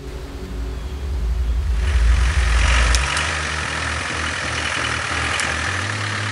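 Off-road Land Rover Defender's engine running. A deep rumble is loudest in the first half, then it settles into a steadier running sound with a few sharp clicks.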